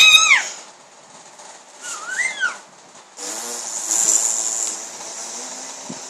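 A pet's high squeaky cry falling away at the start and a short rising-and-falling squeak about two seconds in, then a long hissing, snore-like breath lasting about three seconds.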